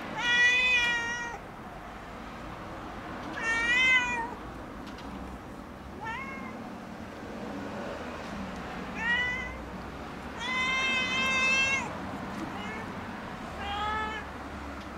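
Domestic cat meowing repeatedly: six separate meows a couple of seconds apart, some about a second long and others short and clipped.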